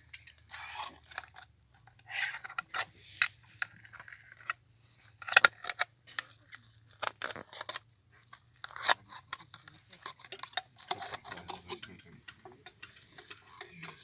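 A metal ladle mixing canned stewed beef into cooked buckwheat in a large aluminium pot, with irregular scrapes and clinks against the pot.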